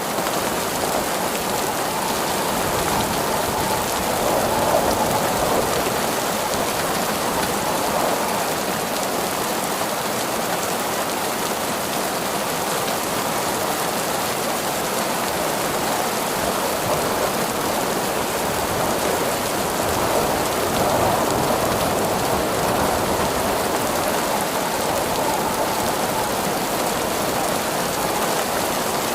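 Steady heavy rain falling on surfaces, a dense continuous hiss that swells slightly a couple of times.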